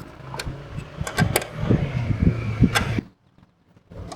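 Sharp clicks and knocks of hand-tool and metal handling while a license plate and its screws are taken off, over a low steady hum. The sound cuts off abruptly about three seconds in.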